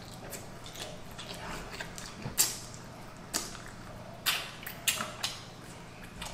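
Close-miked eating of fried chicken: a string of crisp, sharp bites and crunches, about six of them, the loudest about two and a half seconds in, with chewing between them over a steady low hum.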